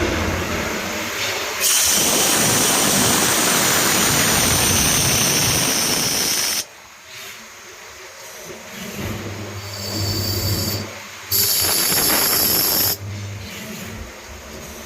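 CNC milling machine cutting a brass part: long loud hissing stretches, likely an air or coolant blast at the cutter, alternate with quieter spells of steady motor hum. The hiss stops suddenly about 6.5 seconds in and returns briefly near the end, with a high whine over it.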